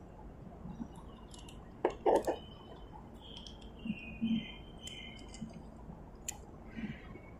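Small clicks and rustles of hands working motorcycle wiring with a screwdriver, handling wires, plastic connectors and a rubber terminal cover, the loudest a quick cluster of clicks about two seconds in. Faint high chirps sound in the background midway through.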